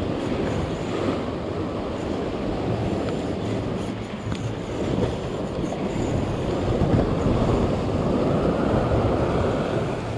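Steady rushing noise of sea surf and wind at the shoreline, with wind buffeting the microphone.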